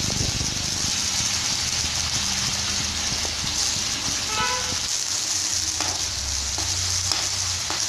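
Sliced onion sizzling in hot oil in a kadai, a steady hiss as it begins to fry.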